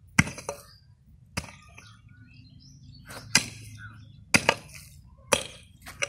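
A pickaxe striking into soil: sharp thuds, about six blows an irregular second or two apart, as clods of earth are broken loose.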